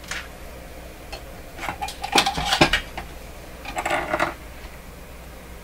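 Hard objects clinking and clattering as they are handled, in two short bursts of rapid clicks, the louder one about two seconds in and a second about four seconds in.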